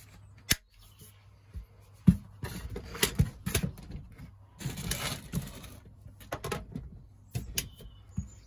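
Hands handling parts and tools: scattered sharp clicks and knocks with stretches of rattling and rustling between them.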